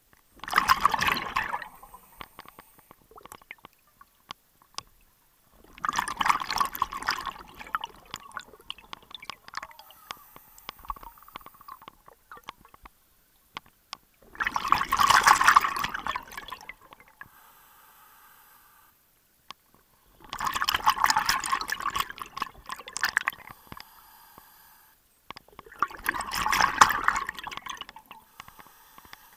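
A scuba diver's exhaled bubbles rushing and crackling out of the regulator, heard underwater in five rushes of one to three seconds, one to each breath, with quieter stretches between them.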